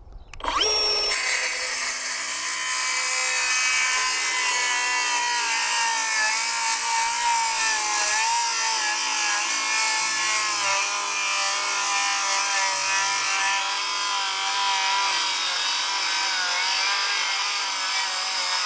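Milwaukee M12 FUEL Gen 2 5-3/8-inch cordless circular saw spinning up about half a second in, then cutting slowly across a 2x12 board, its motor pitch sagging and wavering as the blade works through the wood.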